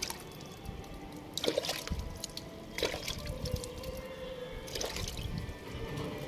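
Water dripping and trickling from the drainage hole of a freshly watered clay pot onto a wet tiled floor, with three sharper drips about a second and a half, three and five seconds in.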